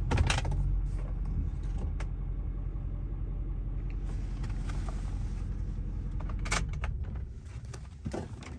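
Low engine and road rumble heard from inside a pickup truck's cab as it drives slowly, with a few sharp knocks and rattles. The rumble fades near the end as the truck comes to a stop.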